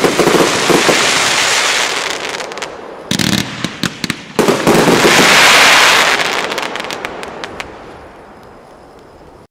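Piromax PXC306 90-shot firework compound battery firing: rapid sharp pops from shots launching and bursting, with dense crackling that swells loudly at the start and again about halfway through, then fades away toward the end.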